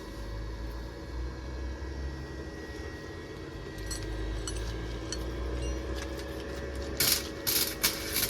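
Welding on a steel exhaust pipe: several short bursts of arc crackle start about seven seconds in, over a steady low hum, with a few faint metallic clicks a little before.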